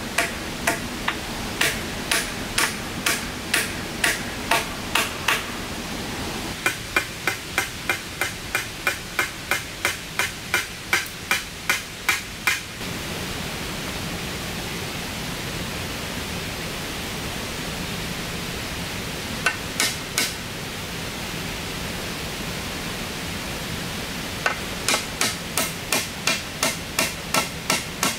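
Runs of sharp, rhythmic blows of a hand tool, about two to three strikes a second with a slight ring, stopping for several seconds in the middle and resuming near the end, over a steady hiss.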